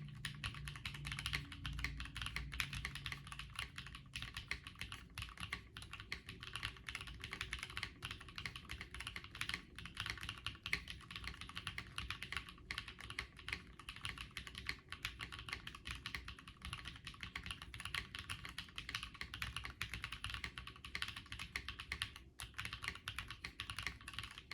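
Continuous typing on an Epomaker Galaxy65 mechanical keyboard with KTT Blueberry Ice Cream switches, an FR4 plate and double-shot keycaps: rapid, even keystrokes with a few brief pauses.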